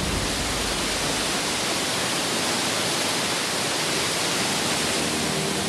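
Fast-flowing underground river rushing steadily, an even hiss of white water. Low sustained music notes come in near the end.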